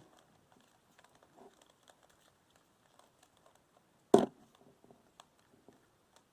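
Faces of a plastic Rubik's cube being turned by hand: faint, scattered clicking of the layers, with one loud, sharp clack about four seconds in.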